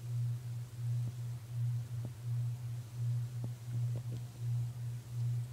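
A low electrical hum that swells and dips about twice a second, with a few faint soft clicks.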